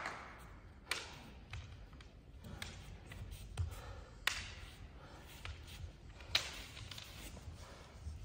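Scattered sharp clacks of bamboo shinai knocking together as two kendo fighters grapple at close quarters, with a few low thuds of bare feet on a wooden floor, ringing in a large hall.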